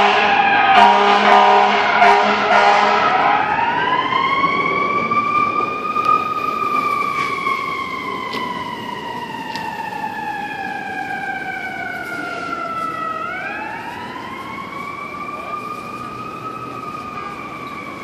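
Volunteer ambulance air horns blasting for the first few seconds, then its siren in a slow wail that rises, falls slowly and rises again. The siren fades as the ambulance moves off through traffic.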